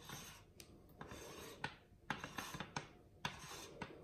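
Hands turning a threaded metal adapter ring off the back of a Zenithstar 73 refractor's focuser: faint rubbing and scraping of fingers and threads, with small clicks every half second or so.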